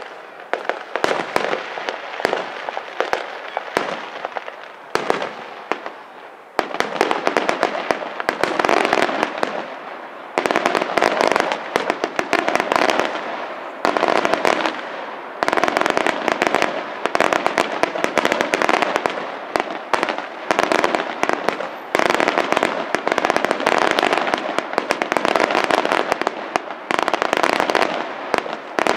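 Aerial fireworks display: shells bursting with separate bangs for the first several seconds, then a dense, rapid volley of bangs and crackling from about six seconds in.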